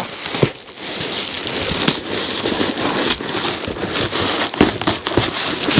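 Plastic shipping bag crinkling and rustling without a break, full of small crackles, as it is wrestled out of a tight cardboard box.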